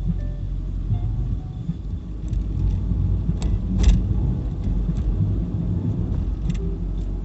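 Car driving, heard from inside the cabin: a steady low rumble of engine and road noise, with a couple of faint ticks about three and a half and four seconds in.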